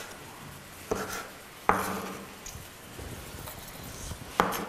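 Kitchen knife and cookware at work: three sharp knocks and clinks, the loudest about a third of the way in, with faint scraping between, as cherry tomatoes are cut on a wooden board and handled by the pan.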